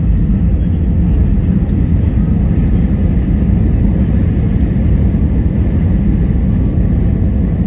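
Steady low rumble inside an Airbus A319's cabin, the engines and wheels heard through the fuselage as the airliner rolls on the ground after landing.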